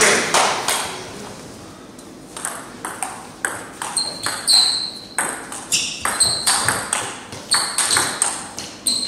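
Table tennis rally: the ball clicks back and forth off the paddles and the table, some hits ringing with a short high ping. The hits start about two seconds in and come at about two a second.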